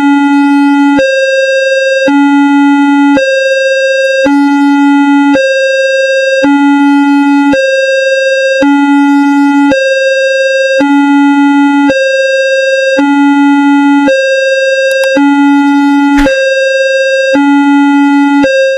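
Synthesized railway level-crossing alarm: two electronic tones, a low one and a higher one, alternating about once a second, with a brief click near the end.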